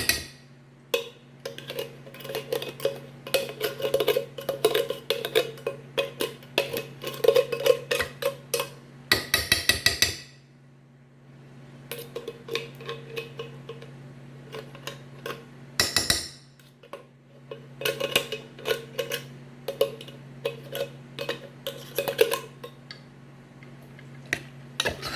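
Metal spoon and cookware clinking, tapping and scraping, in runs of quick taps with brief pauses.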